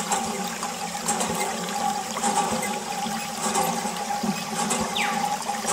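A stream of water from a mini hand pump splashes steadily onto a plastic toy helicopter. Two short falling chirps are heard near the end.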